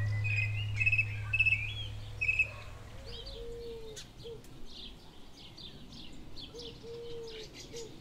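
A low held music note fades away over the first few seconds while small garden birds chirp. There is a run of short chirps at first, then a scatter of higher chirps and a couple of low drawn-out calls.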